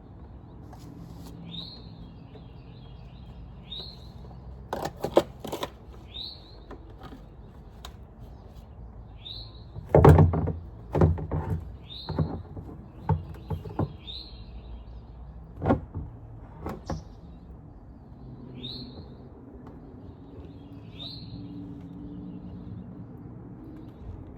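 A bird chirping over and over, a short rising note about every two seconds. Several sharp knocks and clanks break in, the loudest about ten seconds in, over a faint steady low hum.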